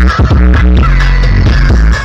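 Electronic dance music with heavy, sustained bass, played very loud through a 'sound horeg' carnival loudspeaker rig.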